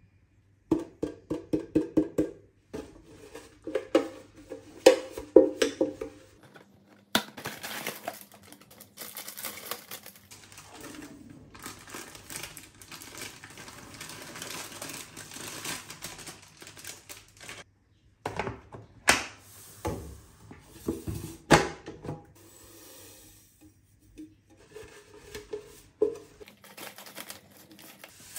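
Pancake mix being decanted. For the first six seconds there are fast runs of tapping on an upturned clear plastic canister as the last powder is shaken out into a glass bowl. Then comes a long rustling pour of powder from a plastic bag into the canister, and near the end a few sharp knocks and crinkles as containers and packets are handled.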